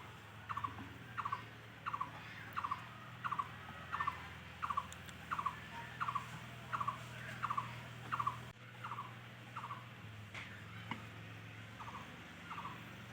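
An animal calling: a short falling chirp repeated steadily about once every 0.7 seconds, growing fainter after about nine seconds, over a low steady hum.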